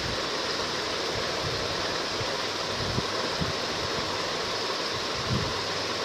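Steady loud hiss of background noise, with a few soft low bumps about three seconds in and again near the end.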